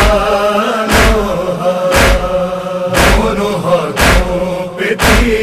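Noha backing: a men's chorus holding a chanted drone over a steady beat of chest-beating (matam), about one heavy slap a second.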